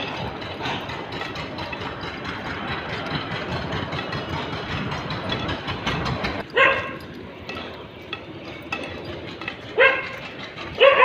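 A dog barks about two-thirds of the way through and again near the end, short sharp barks over steady street noise.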